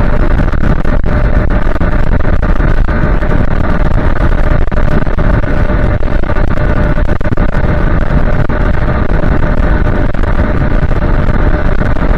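Loud, steady wind rush on the microphone while riding an electric scooter at speed, with a steady whine held underneath.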